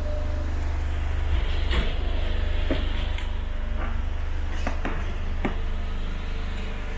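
Steady low rumble inside a passenger vehicle setting off after its doors close, with about half a dozen sharp knocks and rattles between about one and a half and five and a half seconds in.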